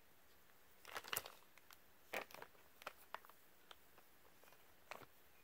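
Clear plastic bags crinkling in a few short, irregular bursts as small machined parts are handled in and out of them, with quiet room tone between.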